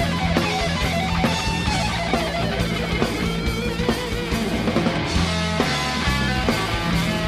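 Rock music instrumental with electric guitar, a steady bass line and drum hits, no vocals.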